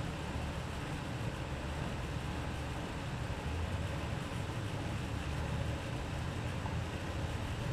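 Steady low rumble and hiss of outdoor background noise with no ball strikes.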